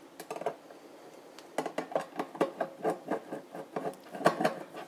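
A sheet-metal screw being turned by hand with a screwdriver into the cover of a steel relay enclosure: a run of small metallic clicks and scrapes, several a second, that starts about a second and a half in.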